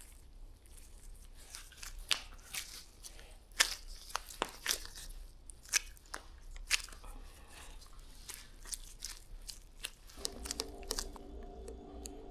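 Irregular crunching and scraping with sharp clicks: a knife cutting and carving into a foam deer mannequin by hand. A faint steady hum sets in near the end.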